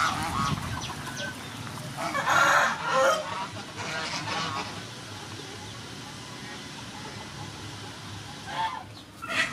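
Farmyard poultry calling. Domestic geese honk at the start, a rooster crows loudly about two seconds in, and shorter fowl calls come near the end.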